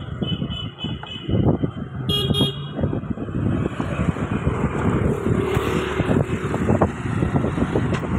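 Road traffic with heavy wind rumble on the microphone, and vehicle horns tooting twice: a short series of toots near the start and a louder toot about two seconds in.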